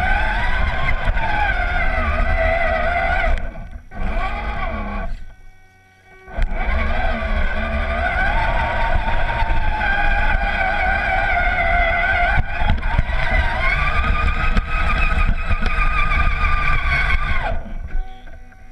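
Radio-controlled crawler truck's electric motor and geartrain whining as it drives through deep snow, the pitch rising and falling with the throttle over a low rumble, heard up close from a camera mounted on the truck. The whine drops out twice in the first few seconds and stops near the end.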